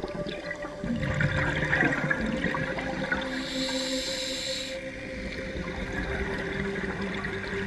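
Underwater sound of water and air bubbles gurgling, with a faint steady hum underneath and a brief hiss about midway.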